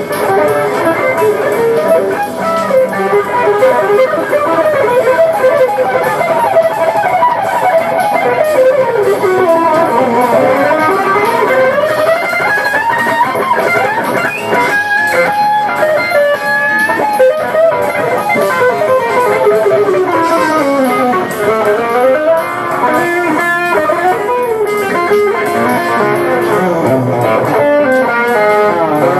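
Jazz fusion music: an electric guitar plays fast scale runs that sweep down and back up in pitch several times.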